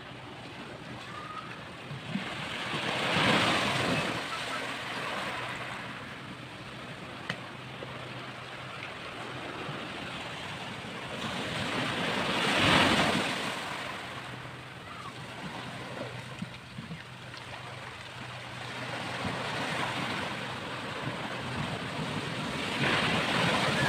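Sea waves breaking and washing up a sandy beach, swelling and fading in several surges, the loudest about halfway through.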